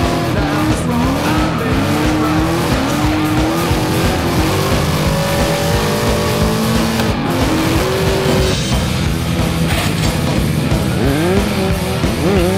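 Ford Mustang Cobra's V8 drifting, its engine pitch rising and falling constantly under throttle, with tyres squealing and skidding.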